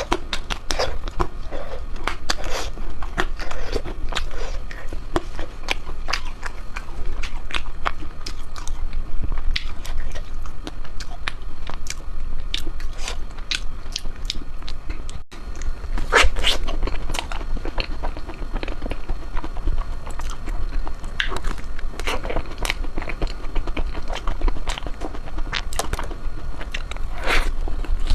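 Close-up mouth sounds of someone biting and chewing ice cream, a dense run of irregular small sharp clicks and crackles, with a momentary dropout about halfway through.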